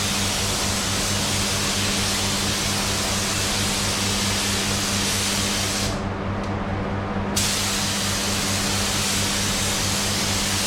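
Automotive paint spray gun hissing steadily as paint goes on, stopping for about a second and a half partway through as the trigger is let go, then starting again, over a low steady hum.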